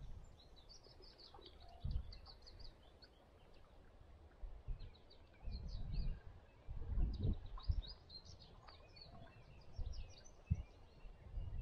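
Songbirds chirping and singing in a quick, busy series of short high notes, with irregular low thumps and rumbles underneath, the loudest a few seconds in and again near the end.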